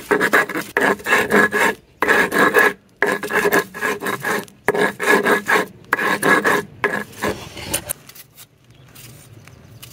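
Rapid, rough rasping strokes of food preparation, in loud bursts of about a second with short pauses between them, stopping about eight seconds in.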